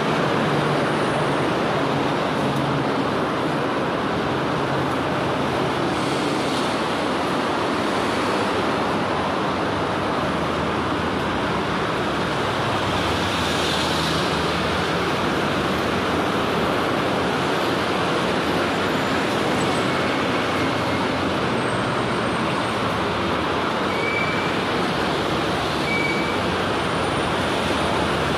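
Steady road traffic noise from passing vehicles, an even, continuous wash of sound.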